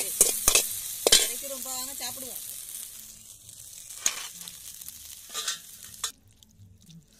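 Scrambled egg with onion and green chilli sizzling in an aluminium kadai, with a slotted steel spatula scraping and knocking against the pan several times. The sizzle cuts off suddenly about six seconds in.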